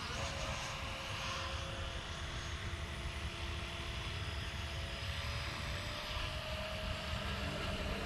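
Electric ducted-fan whine of an E-flite F-16 70 mm RC jet in flight, a steady rushing sound with faint tones that drift slowly in pitch, over a low rumble.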